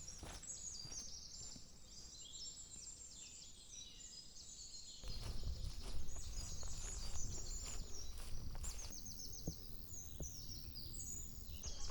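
Small songbirds chirping and trilling almost without pause, many short high-pitched notes overlapping. A low rumbling noise joins about five seconds in.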